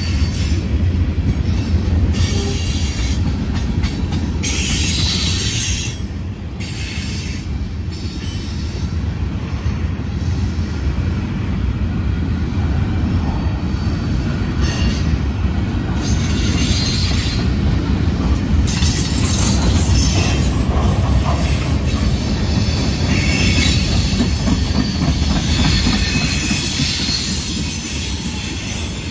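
Freight cars of a passing manifest train rolling by: a steady low rumble of steel wheels on rail, with high-pitched wheel squeal coming and going.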